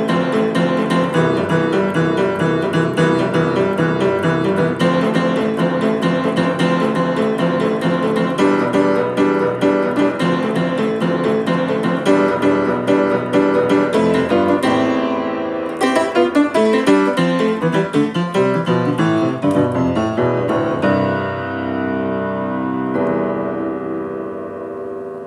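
Piano playing a lively instrumental piece in quick, busy runs. About two-thirds of the way through the playing thins out, and the last chords are held and fade away.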